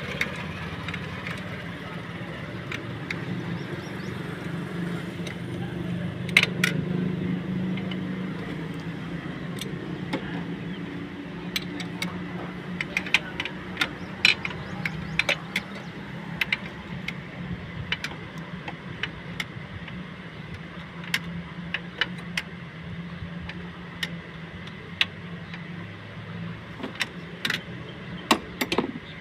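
Irregular metallic clinks and taps of a hand tool working on the wiring and fittings in a car's engine bay, over a steady low hum.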